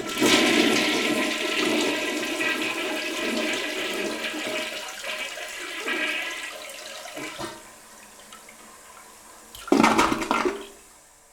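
Toilet flushing: a loud rush of water that tapers off over about seven seconds, then a short, loud second rush of water about ten seconds in that fades away.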